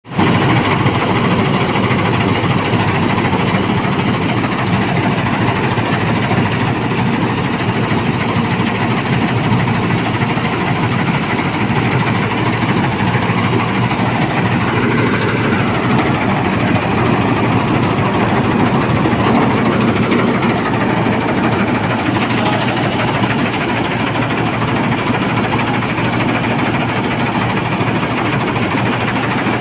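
A repaired vehicle's engine running loud and steady at an even speed.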